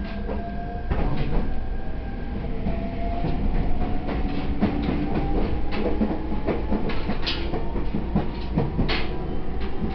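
E127-series electric multiple unit running and picking up speed: a motor whine rising slowly in pitch over a steady rumble, with the wheels clicking and clacking over rail joints.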